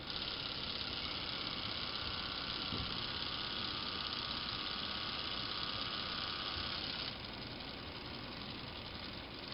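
Small Lego Power Functions electric motors whining steadily as they drive the Lego pulling tractor and spin its Lego V6 engine. About seven seconds in the sound drops to a quieter whir.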